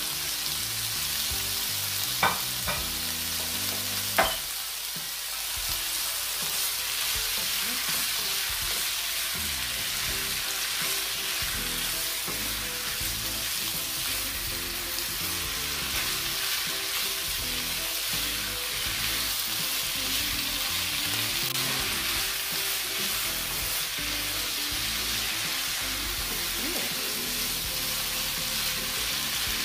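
Beef strips and vegetables sizzling steadily in a hot pan as they are stirred, with two sharp clicks about two and four seconds in.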